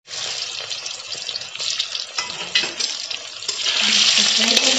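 Boiled baby potatoes sizzling as they fry in hot oil in a steel kadhai, with a few light knocks. The sizzle grows louder about three and a half seconds in as a steel spatula stirs the potatoes.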